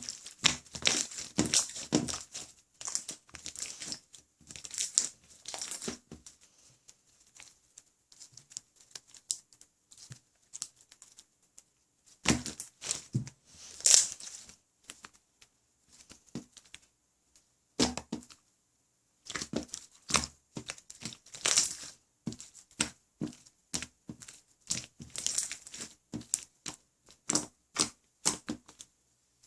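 Clear jiggly slime being squeezed, pressed and stretched by hand, making clusters of sticky pops and crackles with quieter pauses between.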